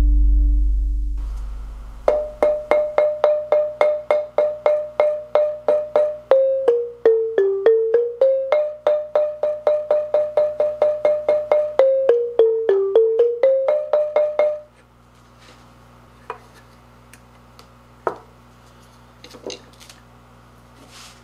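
A mallet striking padauk marimba keys, about four strokes a second: mostly one repeated note, stepping down to lower keys and back up twice, then stopping suddenly about two-thirds of the way through. A few light clicks and knocks follow.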